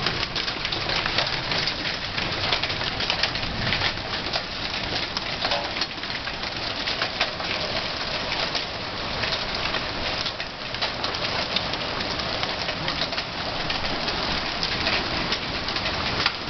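Small hail falling steadily: a dense, continuous patter of hailstones striking the ground and nearby surfaces.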